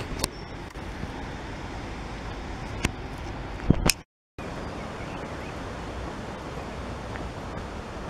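Steady outdoor rushing noise with a few sharp knocks from the camera being handled in the first half, the loudest just before a brief dropout to complete silence about halfway through.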